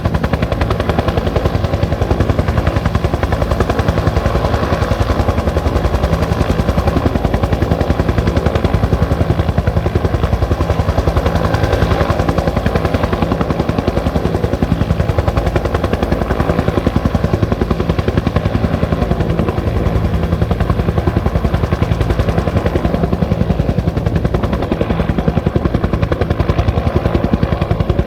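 Bell 205 helicopter running steadily: the fast, even beat of its two-blade main rotor over the whine and rumble of its turbine engine.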